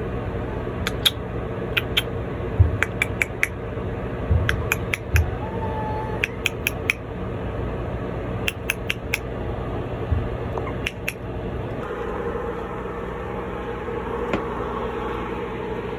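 Scattered sharp clicks and rattles of a toy poodle puppy working at its crate, coming in small clusters through the first two-thirds, over a steady background hum.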